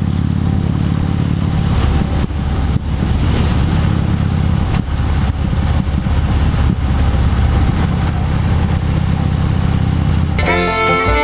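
Harley-Davidson motorcycle's V-twin engine running as the bike rides off, a steady low drone. Banjo-and-fiddle music comes in near the end.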